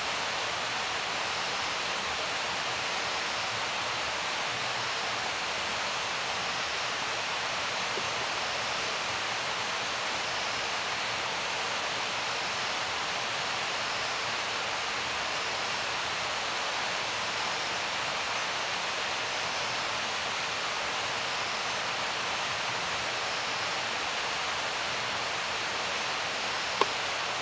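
Steady, even rushing hiss like running water, with one short click near the end.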